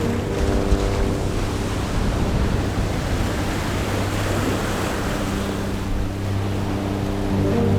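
Black Sea surf washing on the shore, one wave building to a peak around the middle. Soft background music with sustained tones sits under it, dropping away in the middle and returning near the end.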